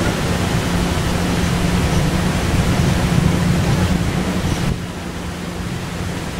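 Steady background hiss with a low hum under it; the upper hiss drops away abruptly about three-quarters of the way through.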